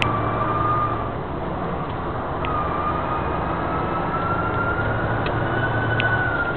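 A vehicle's engine and road noise heard from inside the cab while driving, with a thin high whine that drops away about a second in, then comes back and slowly climbs in pitch as the vehicle speeds up.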